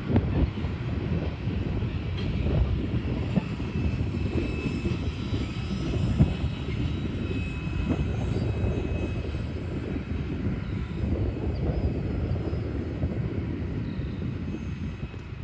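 BNSF freight train cars rolling past, a steady low rumble of wheels on rail.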